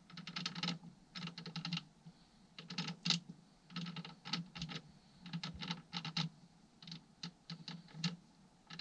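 Transmission gears of a Kawasaki KD175 engine clicking against each other as they are turned over by hand for inspection. The clicking comes in about a dozen short rattling runs, each about half a second long.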